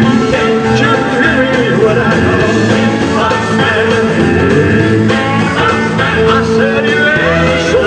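Live rock-and-roll band playing a blues number, with a male lead vocal sung into a handheld microphone.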